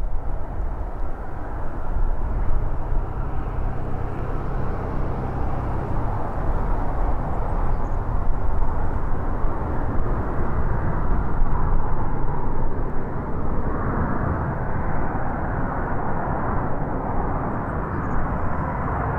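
Airbus A380 on final approach with its landing gear down. Its four jet engines make a steady low rumble and rushing noise, with a low hum in the first few seconds.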